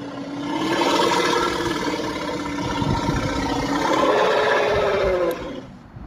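Dinosaur roar sound effect: one long, pitched creature call that wavers slightly in pitch and fades out about five and a half seconds in.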